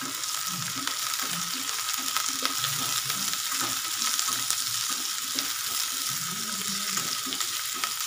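Sliced onions sizzling in hot oil in a pan, freshly added and being sautéed, with a spatula scraping and stirring them around the pan throughout.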